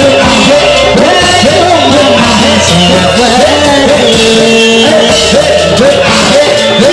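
Loud music with singing: a voice slides and bends between notes and holds some long notes over a steady low accompaniment.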